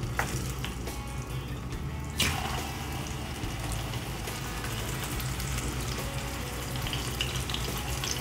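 Hilsa steaks frying in hot oil in a pan: a hissing sizzle that starts suddenly about two seconds in and keeps going.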